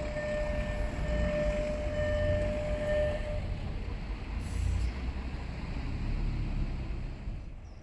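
Level-crossing warning signal giving a steady electronic tone with short gaps, which stops about three seconds in as the crossing clears. A low rumble carries on underneath, and there is a brief hiss about four and a half seconds in.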